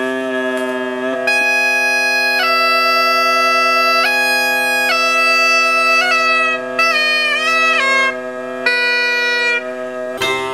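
Bagpipes playing: the drones hold one steady note, and about a second in the chanter comes in with a slow melody of long held notes. The piping cuts off just before the end.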